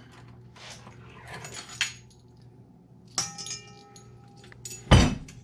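Light kitchen clinks, then a sharp metal tap on a stainless steel stand-mixer bowl about three seconds in that rings for about a second, followed by a heavy clunk near the end.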